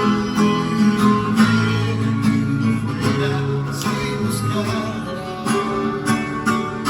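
Live guitar music: plucked and strummed guitar notes over a sustained bass line, with sharp note attacks every fraction of a second.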